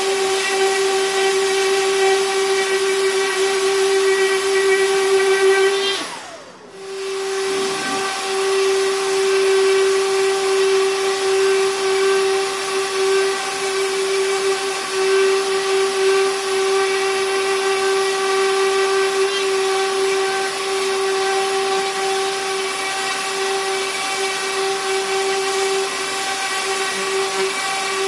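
Festool random orbital sander running steadily on a zelkova wood slab, a constant motor whine over the hiss of the abrasive pad on the wood. About six seconds in, the motor winds down briefly and then spins back up.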